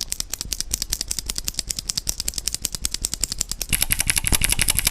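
Gateron Ink Blue V2 clicky mechanical keyboard switch (75 g spring) pressed over and over fast, giving sharp clicks at about ten a second. The clicks get louder and sharper near the end.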